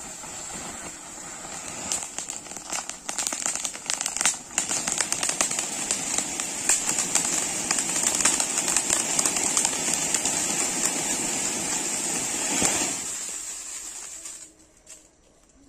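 Stacked anar (flower pot) fountain fireworks burning, spraying sparks with a loud, steady hiss and a run of crackles a few seconds in. The hiss swells and then dies away about fourteen seconds in as the fountain burns out.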